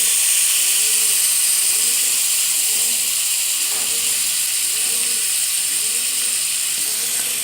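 Marinated tandoori chicken pieces sizzling in hot melted butter in a pan: a loud, steady sizzle.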